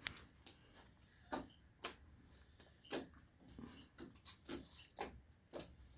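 Homemade slime being poked and squished with fingers, giving irregular sharp clicks and pops, about one or two a second.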